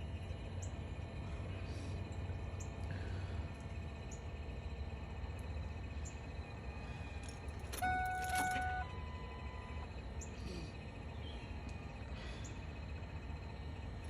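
A steady low hum with no engine cranking or running, from a Ford F-350 that won't start. About halfway through comes a brief electronic chime of about a second, followed by a short single beep.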